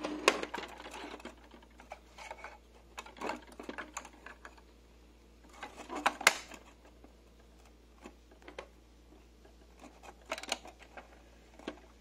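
Scattered plastic clicks and knocks from a pink toy microwave being handled, its small parts and door snapping. The loudest click comes about six seconds in.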